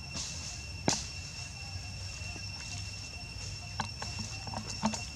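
Steady high insect drone, a single held tone with an overtone above it, with a few sharp clicks or taps on top. The loudest click comes about a second in, with smaller ones later.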